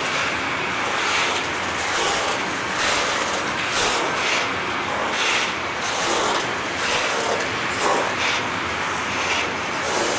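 Loaded freight wagons rolling past at close range: steady rumble and rattle of steel wheels on the rails, with a clack about once a second as wheelsets cross rail joints.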